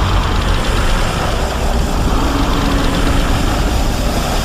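Loud, steady low rumble used as a sound effect for a fictional three-headed winged kaiju.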